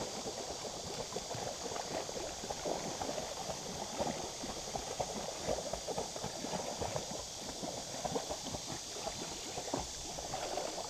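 Irregular sloshing and slapping of water, several small splashes a second, over a steady rush of river water.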